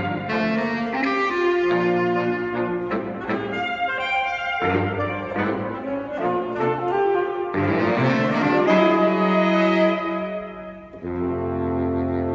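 Saxophone quartet playing in close harmony, held chords shifting every second or so. About ten seconds in the sound dips briefly, then a new low chord comes in and is held.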